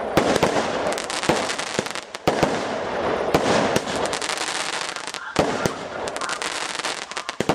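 Fireworks display: continuous dense crackling from many small reports, with short lulls about two and five seconds in, each broken by a sharp bang.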